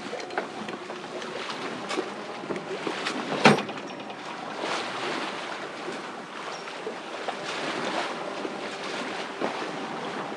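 Wind and water rushing around a Pearson 35 sailboat at sea, with scattered knocks and clicks from the rig and one sharp clank about three and a half seconds in, as the mainsail is brought down.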